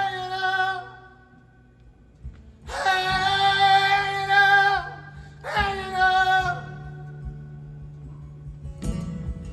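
Live song: a singer holds three long notes with vibrato over a soft, steady low accompaniment, the last one trailing off into a quiet instrumental stretch. A brief knock comes near the end.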